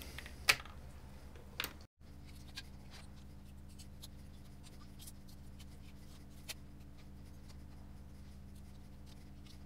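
Light clicks and faint ticks of hands and a small tool on a MacBook Pro logic board and its connectors, with one sharper click about half a second in. A steady low electrical hum runs under it, and the sound cuts out for an instant near two seconds in.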